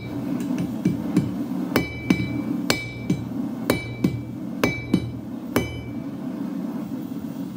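Hand hammer striking a hot railway spike on a steel anvil: about five heavy ringing blows roughly a second apart, each followed by a lighter knock, and the blows stop about two seconds before the end. The blows drive deep grooves into the steel to force the metal out while drawing the blade.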